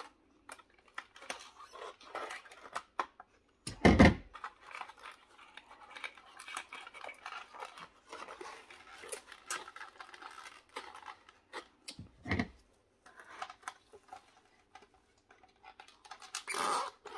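Cardboard box of a die-cast toy car being worked open with a hand tool: scraping, rustling and clicks. A heavy thump about four seconds in, and another near twelve seconds.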